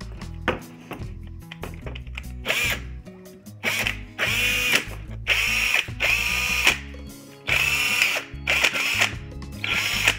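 DeWalt 18V cordless drill with a newly replaced motor running in about six short bursts, each spinning up and winding down as the trigger is squeezed and let go. The longest bursts are near the middle.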